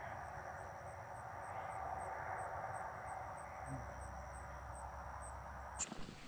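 An insect, likely a cricket, chirping steadily at about three short, high chirps a second over faint outdoor background. Near the end it cuts off suddenly and footsteps on a dirt trail begin.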